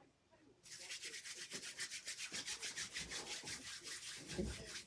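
Hair being rubbed in quick, even strokes, about eight a second, starting about half a second in and lasting about four seconds, with a soft low thump near the end.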